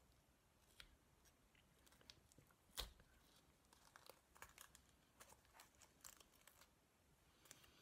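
Masking tape being slowly peeled off a model locomotive's body shell: faint crinkling and scattered small crackles, with one sharper click about three seconds in.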